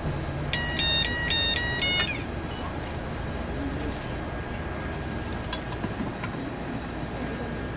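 Electronic timer on a waffle iron beeping a short tune of alternating high and low tones for about a second and a half, signalling that the waffle is done, followed by a click; a steady background hum runs underneath.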